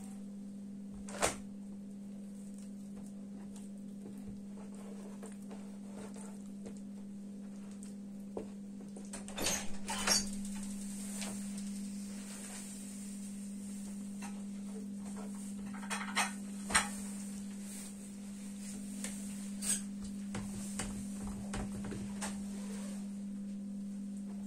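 Scattered light knocks and clicks of hands working a thin sheet of dough on a wooden table, a few of them in short clusters, over a steady low hum.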